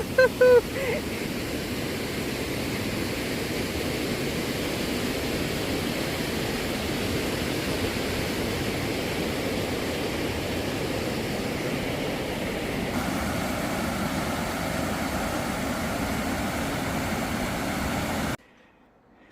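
Fast-moving river rushing through a rocky gorge: a steady hiss of whitewater, with a woman's brief "woo-hoo" at the start. It cuts off abruptly near the end.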